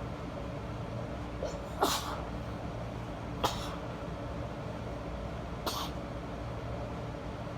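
A woman sneezing three times, short wet hayfever sneezes about two seconds apart. The first, about two seconds in, is the loudest.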